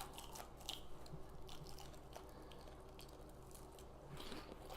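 Faint chewing of fast food, with scattered soft mouth clicks and crunches, over a steady low hum.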